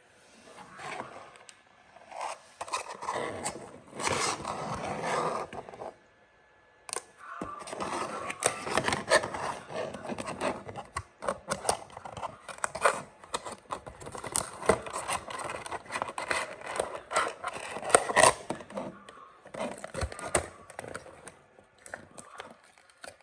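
Close handling noise of a diecast toy car and its packaging: irregular scraping and rustling with many sharp little clicks, broken by a pause of about a second near a quarter of the way in.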